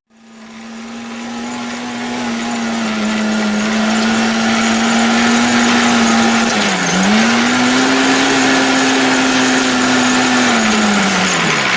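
A small engine running steadily at high revs, fading in over the first few seconds; its pitch dips briefly about seven seconds in and drops again near the end as the throttle eases off.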